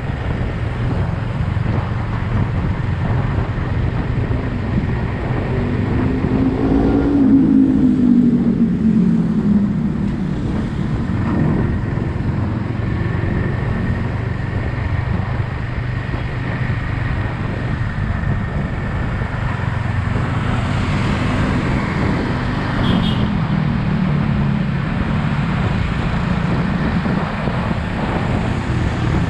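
Yamaha XSR 155's single-cylinder engine running on the road, with traffic and wind noise around it. A steady low hum runs under an engine note that climbs and falls about seven seconds in, and again about twenty-two seconds in.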